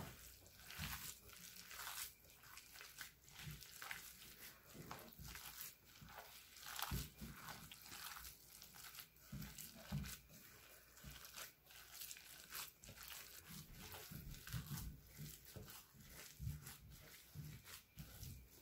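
A gloved hand mixing minced pork and shrimp filling in a bowl: faint, irregular squishing and rustling.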